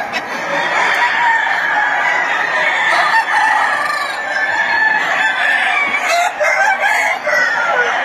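Many caged gamecocks crowing over one another in a continuous, overlapping chorus, with some clucking mixed in.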